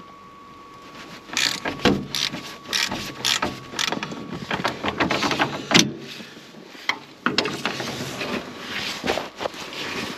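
Socket ratchet on a long extension clicking in quick runs of strokes as bolts on a tractor's side grill panel are loosened, with small metal knocks between runs.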